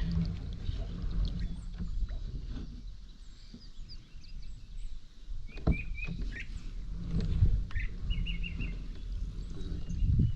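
Small birds chirping, twice in short runs of quick repeated notes, over a steady low rumble of outdoor noise, with a sharp knock about five and a half seconds in.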